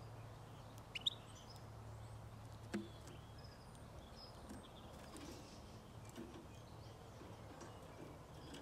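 Faint, scattered short calls of European goldfinches over a steady low background hum, with two sharp clicks about a second in and another near three seconds.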